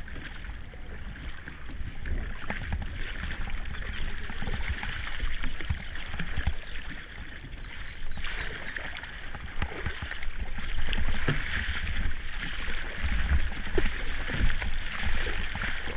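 Kayak paddling on a river: paddle blades dipping and splashing, over a steady wash of moving water and a low rumble, growing somewhat louder about ten seconds in.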